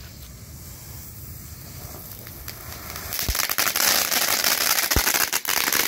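A World Class Fireball mini firework fountain burning. It starts as a faint fizz, then about three seconds in it flares into a loud spraying hiss shot through with sharp crackles.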